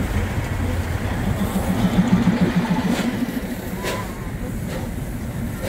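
Vehicle engine running with a steady low rumble, a rapid pulsing hum swelling about two seconds in.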